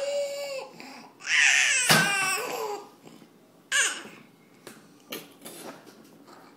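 A toddler squealing and laughing with delight: a short high arching squeal, then a loud shrieking laugh about a second in, another short squeal near four seconds, then softer little sounds.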